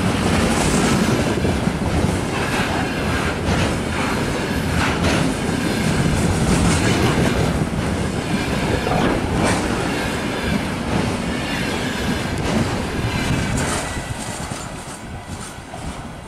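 Freight train's loaded container flatcars rolling past at speed, wheels clattering over the rail joints in a steady run of clacks. Near the end the sound fades as the tail of the train passes and draws away.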